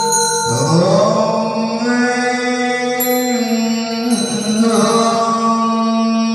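Buddhist chanting: a slow liturgical chant sung in long held notes, one sliding up into a new sustained note about half a second in.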